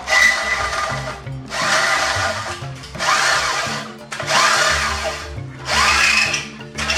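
Electric drill cutting into steel plate in repeated bursts, one about every second and a half, with a high metallic whine that rises and falls in pitch as it bites. Background music plays underneath.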